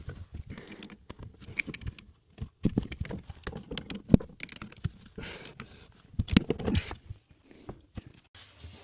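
Irregular clicks, knocks and rattles of tools and parts being handled, with two louder clusters of knocks about three and six seconds in.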